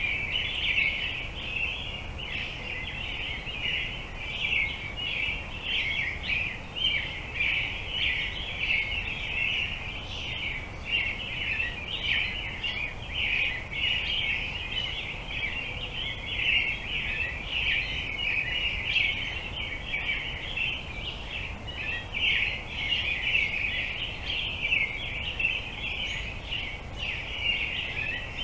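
Dense, unbroken chatter of many birds calling at once, with a faint low rumble underneath.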